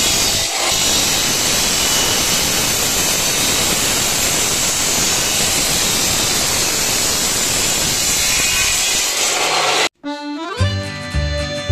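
A power tool works steadily on the rusted sheet metal of a pickup body, a loud dense noise without a clear pitch that cuts off abruptly near the end. Music starts right after.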